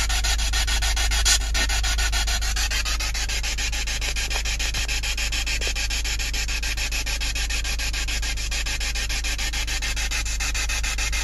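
Loud, steady hissing static with a fast, even stutter running through it over a low rumble, with one brief sharp crackle about a second in.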